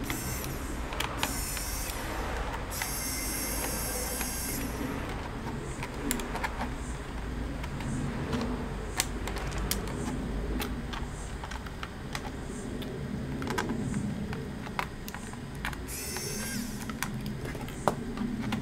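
Scattered small clicks and taps of a laptop's plastic case and screws being handled as the bottom cover is taken off, with a few short high whirring bursts, the longest about three seconds in.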